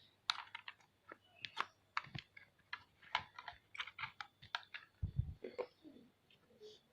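Irregular light clicks and taps of an analog multimeter and its test probes being handled and set against the circuit board of a CRT television, with a dull low thump about five seconds in.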